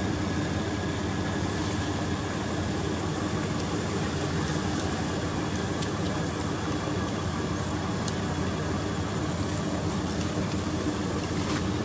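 A motor running steadily: an even hum with constant low tones.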